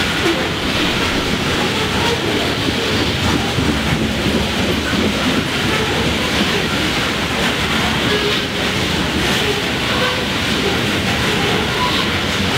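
Loaded coal hopper cars of a freight train rolling past, their steel wheels on the rails making a steady rumble.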